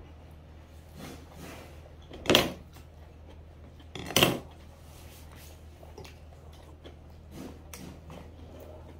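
Someone eating from stainless steel lunchbox containers with a wooden spoon: quiet handling of the steel dishes and eating sounds, with two short louder noises about two and a half and four seconds in, over a steady low hum.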